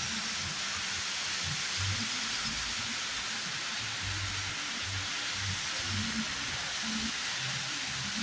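Steady rush of falling water from a roadside waterfall, an even hiss with no break.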